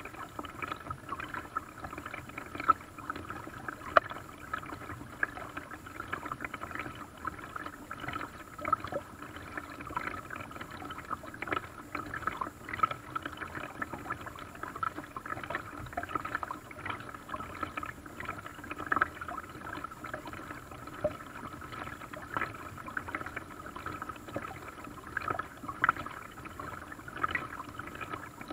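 Lake water lapping and gurgling around a small paddle craft, with many small irregular splashes and drips.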